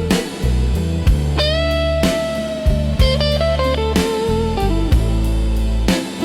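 Slow blues instrumental: electric guitar playing single notes over bass and a drum beat about once a second, with one long bent guitar note held about a second and a half in.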